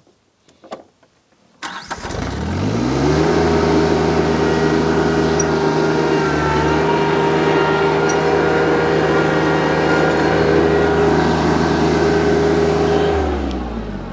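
TYM T25 compact tractor's Yanmar diesel engine and PTO-driven Baumalight MP348 forestry mulcher starting up again after the mulcher was stopped by a stump. It comes in suddenly about a second and a half in, rises in pitch for about a second and a half as it spins up, runs steady, then winds down near the end.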